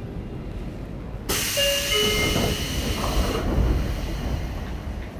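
Sotetsu 8000 series electric train car: a sudden hiss of compressed air starts about a second in and lasts about two seconds over the car's low steady rumble.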